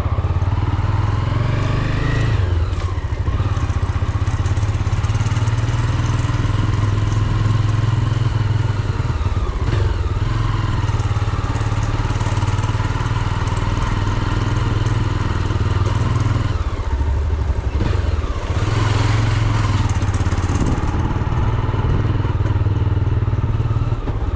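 A vehicle engine running while under way, with a steady low rumble; its pitch rises and falls a few times.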